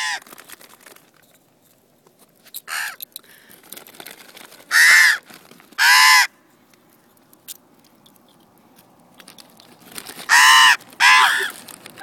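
Common ravens calling with loud, harsh caws: a short call about 3 seconds in, then two pairs of calls, around 5 to 6 seconds and again near the end. Young ravens are begging for food, beaks wide open.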